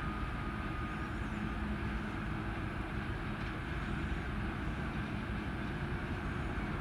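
2TE10UK diesel locomotive with 10D100 engines hauling a freight train, a steady low engine rumble with a faint steady hum.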